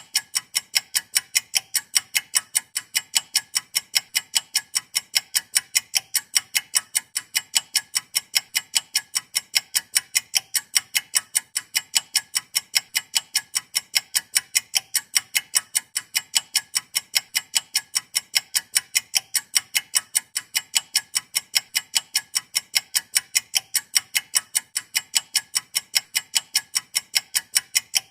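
Stopwatch ticking: a long, steady run of sharp, high clicks at an even, rapid pace of several ticks a second.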